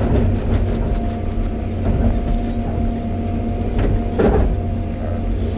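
John Deere 350G excavator's diesel engine running steadily under load, with a single loud clunk about four seconds in.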